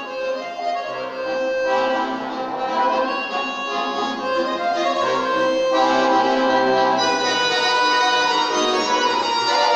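Bayan and accordion orchestra playing sustained, layered chords, swelling louder over the first two seconds and then holding full.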